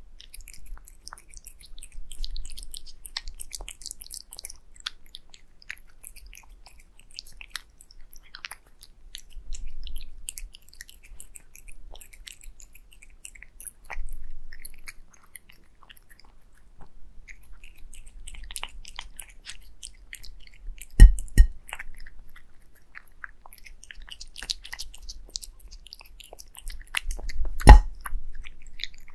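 A black cat chewing wet cat food mixed with egg yolk from a glass plate: wet, crackling chewing in bursts. Two sharp knocks stand out, about two-thirds of the way through and again near the end.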